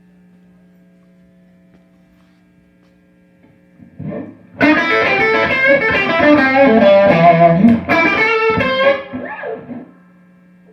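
Steady mains hum from the guitar rig, then about four seconds in a loud distorted electric guitar lick of quick notes. The lick lasts about four seconds and rings out to the hum again near the end.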